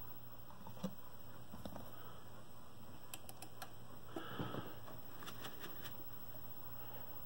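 Commodore 6400 daisy wheel printer feeding paper: scattered light mechanical clicks, with a short burst of clicking and whirring about four seconds in as the paper advances.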